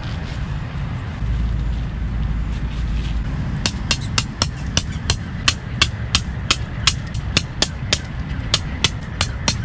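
Tent pegs being hammered into gravel: a regular run of sharp strikes, about three a second, starting a few seconds in.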